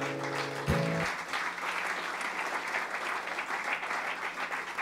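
Audience applauding. The last acoustic guitar chord rings under the clapping and stops about a second in.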